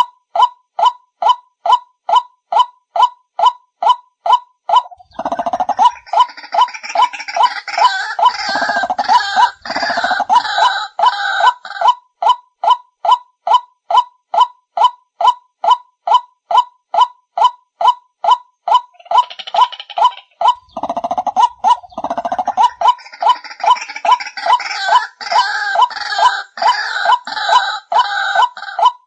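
White-breasted waterhen (kareo padi, ruak-ruak) calling: a monotonous, evenly spaced run of short 'kru-ak' notes, about two or three a second. Twice, for some seven seconds each time, from about five seconds in and again from about 21 seconds in, harsher overlapping croaks join it in a dense chorus. This is a lure recording of the call, used to draw the birds in.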